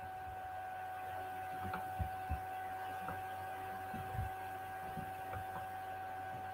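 Quiet room tone with a steady electrical hum and a thin steady tone underneath, broken by a few faint soft knocks, about two seconds in and again around four seconds.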